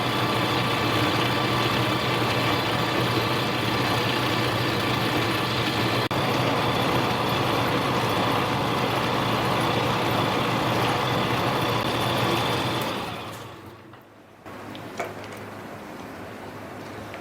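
Metal lathe running steadily with its motor whine and hum while taking a light turning cut, winding down about thirteen seconds in. Afterwards only a quieter hum with a couple of light clicks.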